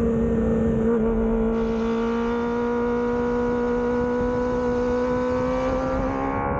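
Kawasaki ZX25R's 250 cc inline-four engine running at high revs, its pitch rising slowly and steadily as the bike pulls out of a corner.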